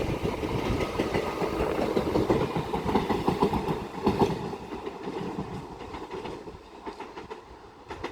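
A pair of Class 375 Electrostar electric multiple units passing at speed, wheels clicking rapidly over the rail joints. The sound fades away over the last few seconds as the rear unit goes by.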